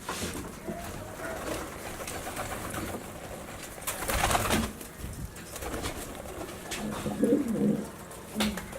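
Racing pigeons cooing in low, repeated calls, with a brief rustling burst about four seconds in.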